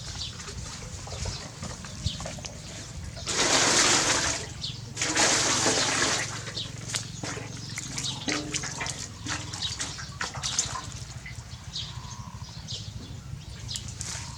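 Water poured or sprayed in two bursts, the first about a second and a half long and the second about a second, during a puppy's bath; scattered small clicks and drips follow over a low steady hum.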